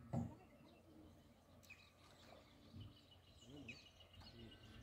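Faint birdsong: scattered short chirps and whistled calls, with a thin, rapid trill in the last couple of seconds. A brief low bump comes just after the start.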